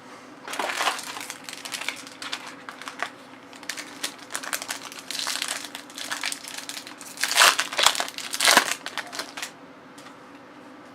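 Plastic-foil wrapper of an Upper Deck hockey card pack crinkling as it is handled and torn open, in irregular rustles with two louder crinkles near the end.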